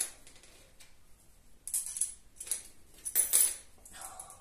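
Metal washers and long screws clinking and jingling together as the washers are slipped onto the screws by hand, in a few short bursts from about a second and a half in to near the end.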